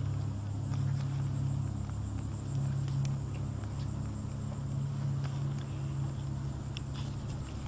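Steady outdoor ambience: a continuous high insect drone, such as crickets, over a low steady hum that swells and fades slightly, with a few faint scattered clicks.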